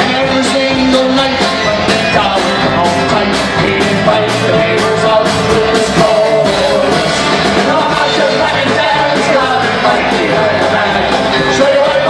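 Live amplified Irish folk-rock band playing a song: fiddle, banjo, mandolin, guitars, bass, bodhrán and drum kit, with a steady beat of drum hits about twice a second.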